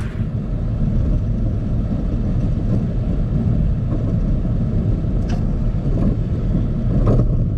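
Steady low rumble of a car's front tyre rolling on asphalt at road speed, mixed with wind buffeting on an outside-mounted camera. Two faint clicks sound a little after halfway and again near the end.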